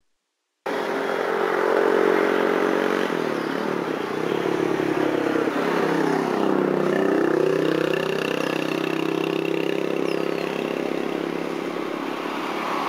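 Motor traffic: several vehicle engines, motorcycles among them, passing by, their pitches rising and falling and crossing one another. It starts abruptly about half a second in.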